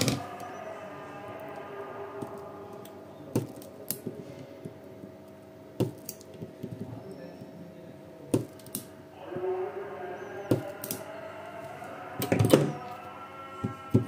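Battery spot welder firing, about ten sharp cracks at irregular intervals, some in close pairs, as nickel strip is welded onto the terminals of 18650 lithium-ion cells.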